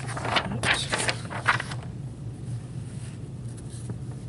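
Trading cards being handled: a quick run of rustling, sliding scrapes in the first two seconds, then a few faint ticks, over a steady low electrical hum.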